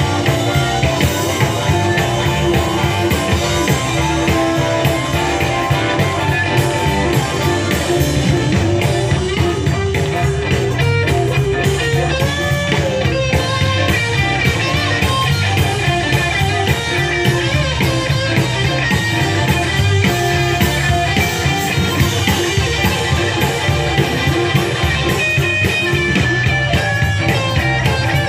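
Live blues band playing: electric guitars over a drum kit, with a harmonica cupped to a hand-held microphone and played through the amplification.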